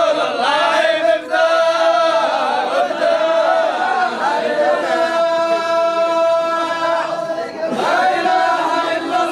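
Group of men chanting a Sufi hadrah devotional hymn together. Phrases are sung on one steady pitch line, with a long held note from about five seconds in to about seven and a half.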